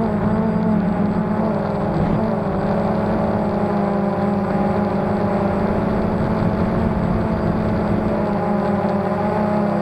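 Motors and propellers of a Phantom quadcopter in flight, heard from its own onboard camera: a steady whirring drone of several close tones, the pitch wavering briefly about two seconds in.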